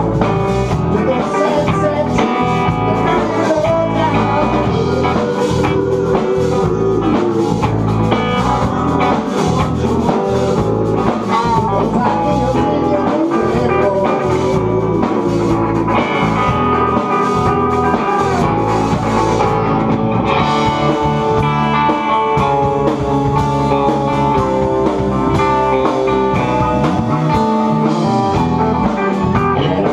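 Live blues-rock band playing loud, with guitars over a drum kit; the sound grows fuller about two-thirds of the way through.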